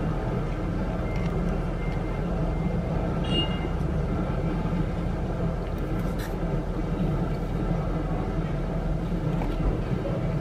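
A steady low mechanical hum, unchanged throughout, like a machine or engine running nearby.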